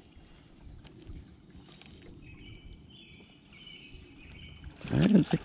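Spinning reel being cranked while a hooked bass is brought to the boat: a faint, high whir that wavers in pitch through the middle, over quiet outdoor background with a few light clicks. A man's voice exclaims near the end.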